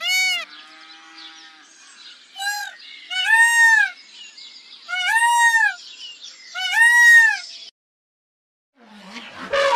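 Peacock calling: a series of loud calls, each rising and then falling in pitch, about every one to two seconds. The calls stop about three-quarters of the way in, and after a second's silence a short harsh, rasping sound begins near the end.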